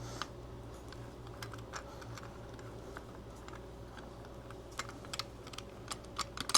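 Scattered light clicks and ticks as a rear-sight pusher tool is worked to push a Glock rear sight out of the slide's dovetail. A sharper double click comes near the end.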